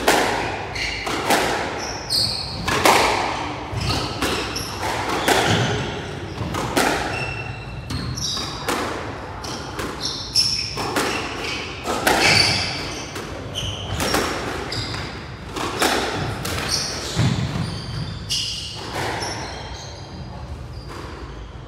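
Squash rally: the ball is struck hard by the rackets and cracks off the front and side walls, a sharp impact every second or so with a short ring after each in the hall. Short high squeaks of court shoes come between the hits.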